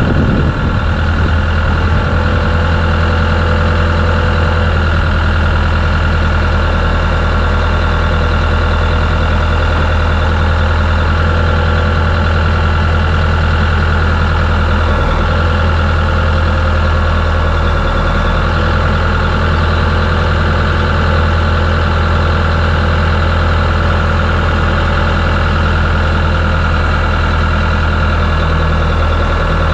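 M62 wrecker truck's engine running steadily at idle, a loud, even low hum with no change in speed.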